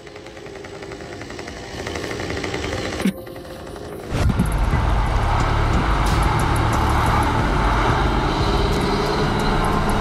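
A fainter rapid mechanical buzz for the first few seconds, then, about four seconds in, the loud steady diesel engine of a KAMAZ 6x6 truck under load as it wades through a river, with water churning around its wheels.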